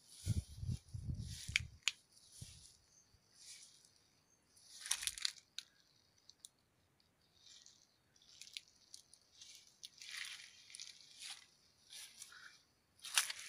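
Leaves and twigs rustling in short, irregular bursts as they brush against the handheld phone, with a few dull handling thumps in the first two seconds and another about five seconds in.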